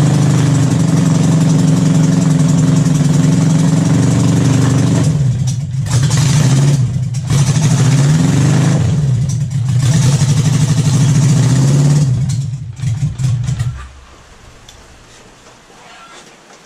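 1978 Honda Gold Wing's flat-four engine running on freshly rebuilt carburetors but not holding a steady idle: it falters briefly three times, then sputters and dies near the end.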